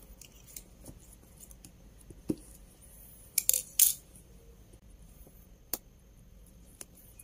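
Hands handling a shrink-wrapped smartphone box: scattered light taps and clicks, a dull knock about two seconds in, and a short burst of crinkling from the plastic wrap about three and a half seconds in.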